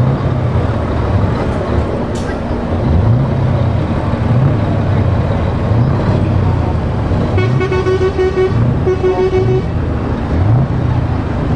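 Heavy lorry diesel engines pulling away, the engine note climbing again and again about once a second as a Scania R-series tractor unit drives past close. Near the middle a truck horn sounds two steady blasts of about a second each.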